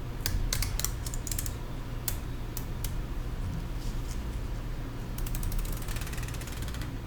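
Small, sharp clicks and taps from handling parts and small tools during a tablet repair. There is a quick cluster of clicks in the first second and a half, a few single clicks, then a fast run of fine ticks about five to six seconds in.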